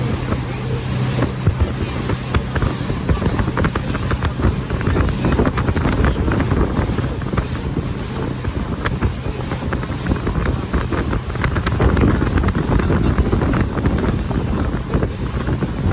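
Tour boat's motor running on the open sea, with wind buffeting the microphone and water rushing and splashing against the hull.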